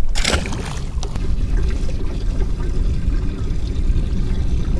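A splash a fraction of a second in as a released fish goes back into the water, then a steady low rumble with water sounds.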